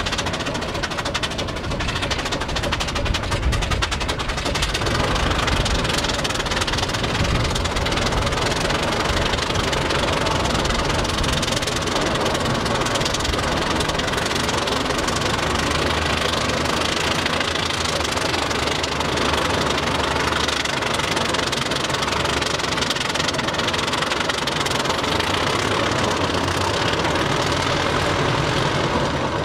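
Steam engine of the D&RGW pile driver "OB" running steadily with a rapid, even knocking beat.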